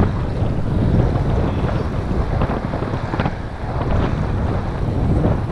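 Wind buffeting the camera's microphone while riding, a loud, rough low rumble with no clear engine note.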